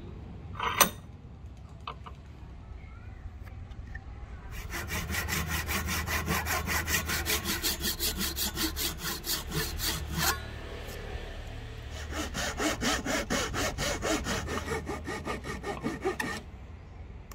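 Hand saw cutting the wedge slot into the top end of a wooden axe handle, in rapid back-and-forth strokes, about four a second, in two runs with a short pause between. A single sharp knock about a second in, before the sawing starts.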